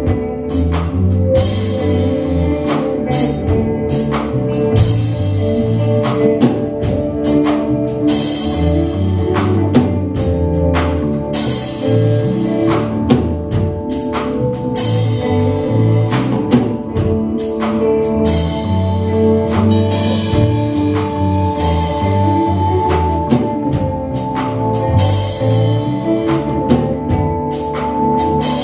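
Live rock band playing: electric guitar, bass guitar, drum kit and keyboard, with a steady drum beat.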